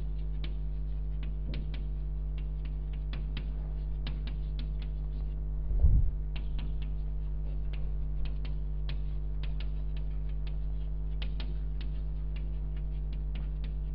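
Chalk on a blackboard: many short, irregular taps and scratches as words are written, over a steady electrical hum. A low thump about six seconds in.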